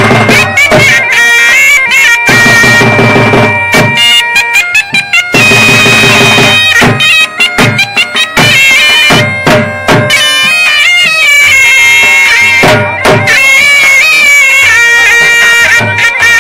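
Loud Saraiki folk dance music: a reedy wind instrument holds long, wavering melodic notes over repeated drum strikes.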